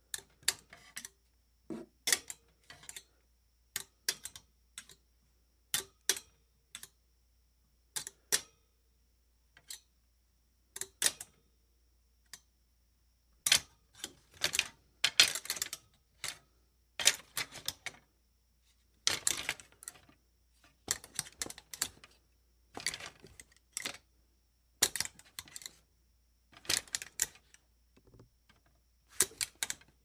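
A clothes hanger knocking and clattering against metal: sharp clicks and clacks, some single and some in quick rattling runs, coming irregularly and most thickly in the middle.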